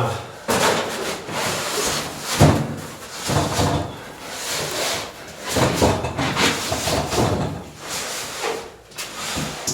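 A large boxed fridge freezer being manhandled: repeated scraping and rubbing with knocks as it is slid and bumped against surfaces, the loudest knock about two and a half seconds in.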